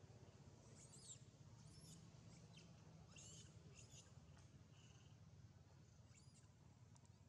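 Near silence: a low steady hum with several faint, short, high-pitched animal calls scattered through.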